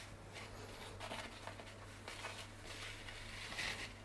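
Faint handling noise of hands shifting a pizza on a metal pizza peel, soft rustles with a slightly louder one near the end, over a low steady hum.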